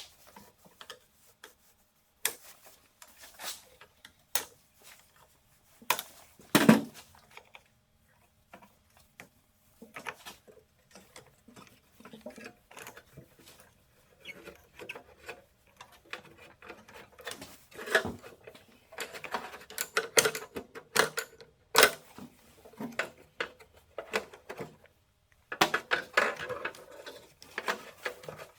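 Hand tools and metal engine parts clicking, clinking and knocking now and then while old ignition coils are worked loose. There is one louder knock about a quarter of the way in, and denser clattering in the later part.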